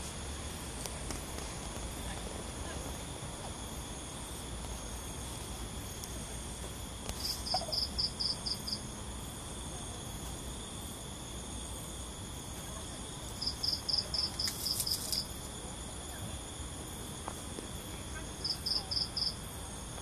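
Night insects, crickets or similar, trilling steadily at several high pitches. Three louder bouts of rapid high chirps, about five a second, come about seven seconds in, near the middle, and near the end.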